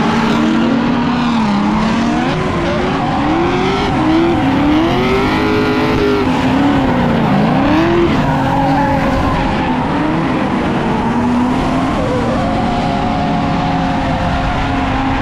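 Several drift cars' engines revving up and down at once as they slide sideways through a corner, with tyres squealing and skidding.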